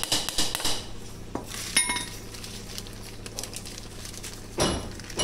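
A few steel hammer blows on nails in a wooden board, then light metallic clinks of loose nails being handled, and a heavier knock near the end.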